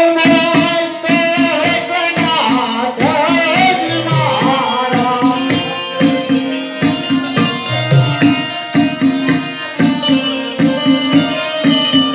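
Live music for a folk stage play: hand drums keep a quick, even beat under sustained instrumental notes, with a voice singing over them, most plainly in the first half.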